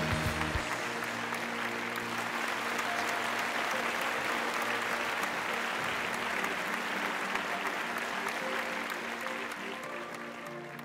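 Audience applauding over background music; the applause fades near the end, leaving the music.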